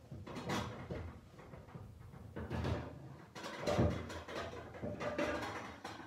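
Cooking pots being handled in a kitchen: a run of irregular knocks and clatters of metal cookware.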